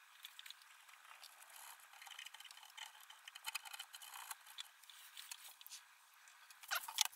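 Faint scratchy ticking of a cotton swab scrubbing flux residue off the solder joints of a circuit board, followed by a few louder knocks near the end as the board is handled.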